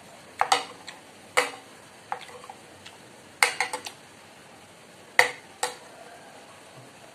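Metal spoon and fork clinking and scraping against a ceramic plate while scooping food: a few sharp, short clinks at irregular moments, with a quick run of them about halfway through.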